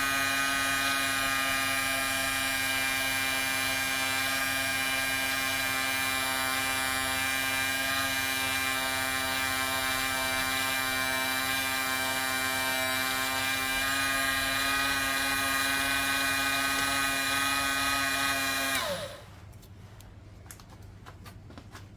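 Small DC electric motor driving a commutator lathe's belt-driven spindle, running with a steady whine while a slot-car motor's commutator is polished with 1200-grit emery paper. About 19 s in the motor is switched off and winds down, its pitch falling until it stops.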